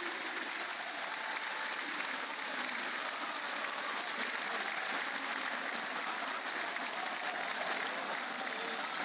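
Football stadium crowd clapping and cheering in a steady, unbroken wash of noise.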